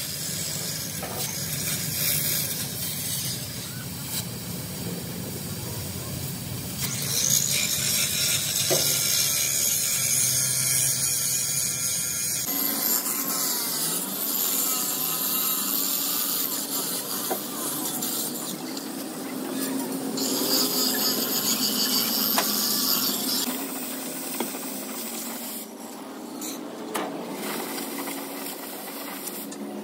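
Metal fabrication noise from tools working sheet steel for a large tank, steady and rasping, with an abrupt change in the sound about twelve seconds in.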